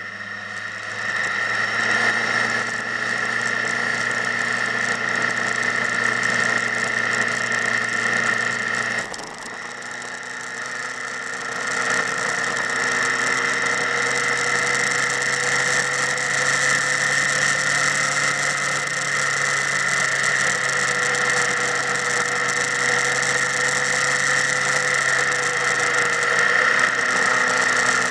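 Motorcycle engine running, easing off suddenly about nine seconds in and picking up again about three seconds later.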